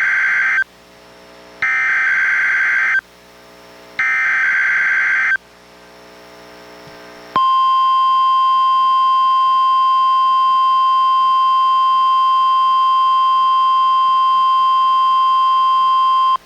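NOAA Weather Radio Required Weekly Test signal received on a Reecom R-1630 weather radio: three bursts of SAME digital header data, each about a second and a half long with about a second between them, the first already under way. After a two-second pause comes the steady 1050 Hz warning alarm tone for about nine seconds, cutting off abruptly just before the end.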